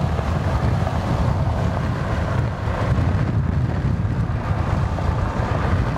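Strong wind buffeting the microphone: a steady, ragged low rumble.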